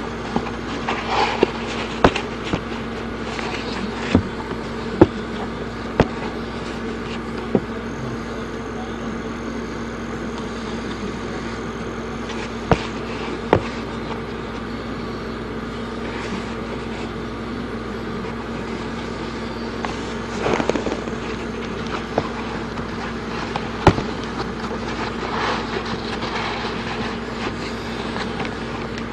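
Handling noise from canvas high-top sneakers and their laces: scattered sharp clicks and knocks, with a few short rustling scuffs, over a steady hum.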